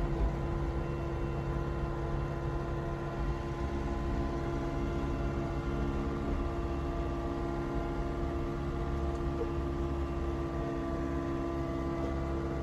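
Engine of a compact front loader running at a steady speed, heard from the operator's seat as a steady pitched hum that does not rise or fall, while the machine carries a bucket load of gravel.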